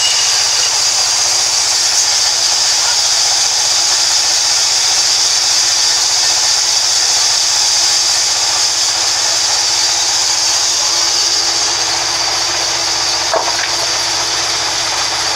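Sawmill vertical band saw running steadily with a loud, even high-pitched hiss as timber is fed through the blade. A single sharp click comes near the end.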